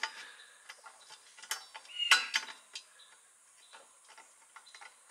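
Small clicks and light rattles of a lamp bulb and its socket being handled inside a car headlight bucket, a socket that doesn't hold the bulb well. The clicks are irregular, loudest at about one and a half and two seconds in, then fainter.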